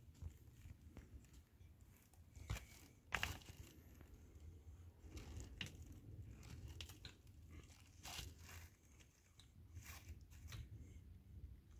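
Faint, irregular crunching and rustling with scattered short sharp clicks over a low background rumble.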